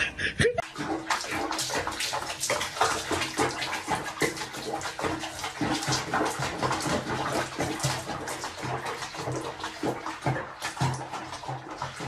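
Water sloshing and splashing in a filled bathtub around a bathing cat, a busy, irregular run of small splashes starting about half a second in.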